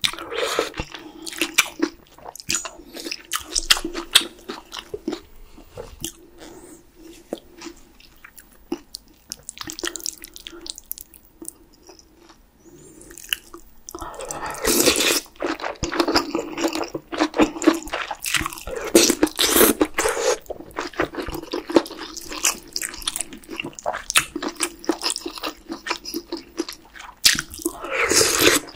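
Close-miked eating sounds: a person slurping noodles and broth of spicy beef soup and chewing, with many wet mouth clicks. A long, loud run of slurping comes about halfway through.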